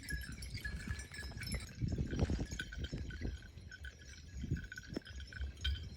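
Bells on grazing cows clinking irregularly, over low rustling and knocks that are loudest about two seconds in.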